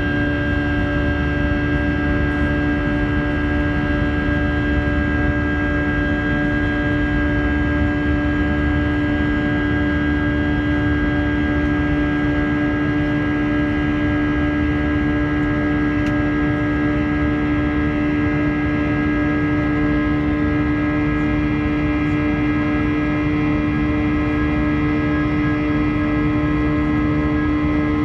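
Airbus A320 cabin noise in the climb after takeoff. The wing-mounted IAE V2500 turbofan runs at climb power as a steady drone, with several held whining tones over an even low rush of air.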